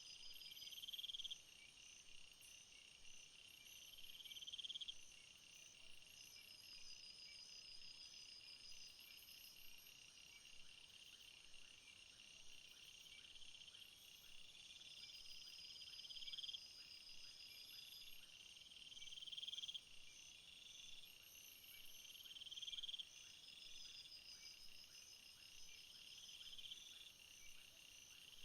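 Faint night chorus of insects: a steady high cricket trill with louder buzzy phrases that swell and break off every three seconds or so.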